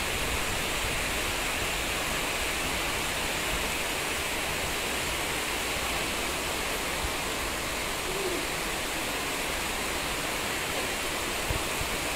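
Heavy rain falling in a steady downpour, a constant even hiss.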